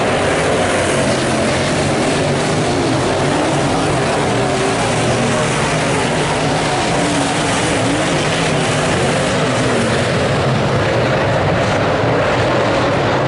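A pack of dirt-track late model sedans racing, their engines running loud and unbroken together, the engine notes wavering up and down as the cars work through the corners.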